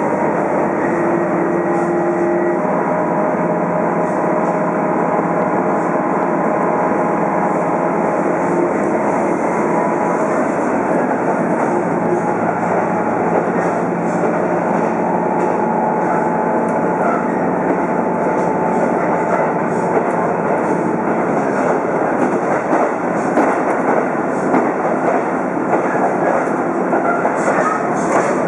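Interior running noise of a diesel railcar travelling at speed: a steady rumble of wheels on rail and the engine, with faint whining tones.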